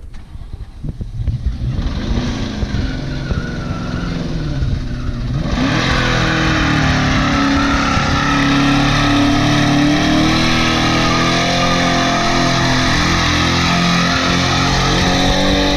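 1999 Ford Mustang GT's 4.6-litre V8, an engine with a rod knock, revving hard in a burnout. From about five and a half seconds in, the rear tyres spin and squeal, and the engine holds steady high revs under them.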